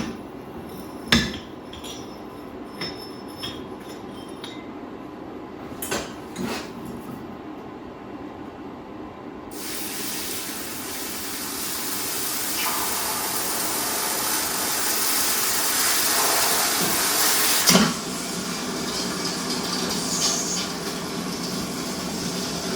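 A few sharp metal clinks and knocks over a low steady rumble, then about ten seconds in a loud, steady rushing hiss starts and keeps going, easing a little near the end.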